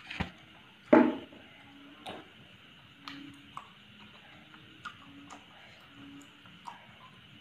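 Person chewing chewy tteokbokki rice cakes close to a clip-on microphone: wet mouth clicks and smacks at irregular intervals, the loudest about a second in.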